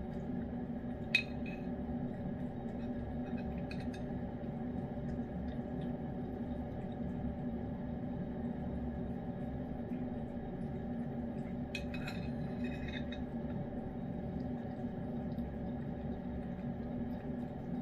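A spoon clinking against a ceramic dish while a cat is spoon-fed: one sharp clink about a second in, a few light taps around four seconds, and a cluster of clinks around twelve seconds. A steady hum runs underneath.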